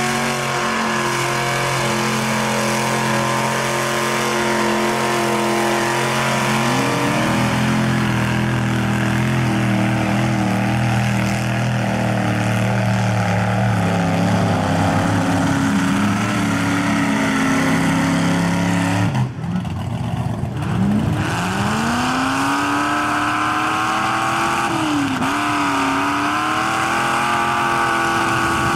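Lifted 4x4 mud trucks' engines revving hard and held at high revs as they churn through a mud pit. The engine pitch rises and falls, and it changes abruptly at a cut about two-thirds of the way through.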